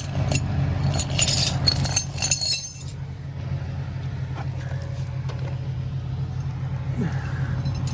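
Tow truck engine idling steadily. Over it, in the first three seconds, chains and hook hardware clink sharply while the car is being rigged for winching.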